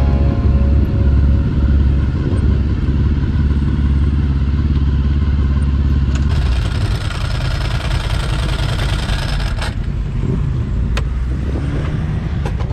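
Honda VFR 800's V4 engine running on the move, a steady low drone with wind hiss over it. The drone eases about six seconds in, and a few sharp clicks come near the end.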